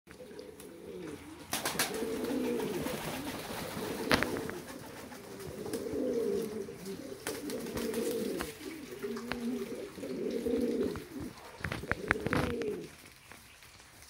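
Reversewing Pouter pigeons cooing: low, rolling coos repeated almost without a break. A few sharp knocks come through, the loudest about four seconds in and around twelve seconds in.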